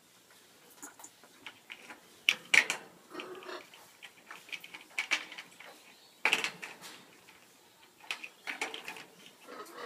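African grey parrots playing with toy blocks: irregular clicking, knocking and scraping, with the loudest clatters about two and a half and six seconds in.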